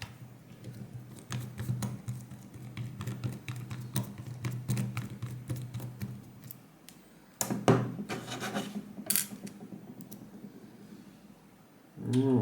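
Small electric motor running steadily for about six and a half seconds, then again briefly, with clicks and scraping of small metal lock parts.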